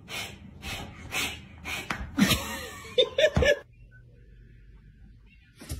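A person laughing in rapid breathy bursts, with a few short voiced laughs near the end, stopping about three and a half seconds in.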